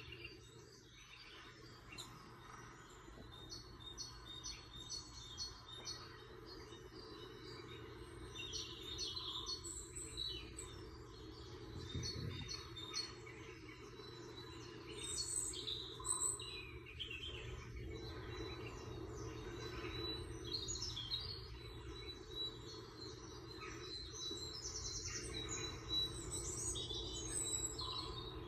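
Small birds chirping and twittering, many short high chirps and quick trills coming and going throughout, over a steady low background noise.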